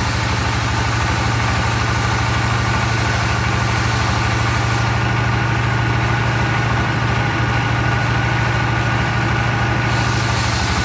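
An engine idling steadily with an even low pulse.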